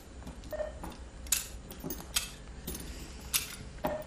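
Steel surgical instruments clinking against each other and the instrument tray as they are picked up and set down: about six sharp metallic clinks, a couple ringing briefly, over a steady low hum.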